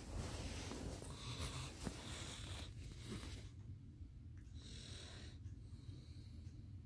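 Close breathing: several soft, hissy breaths about a second apart, over a steady low rumble.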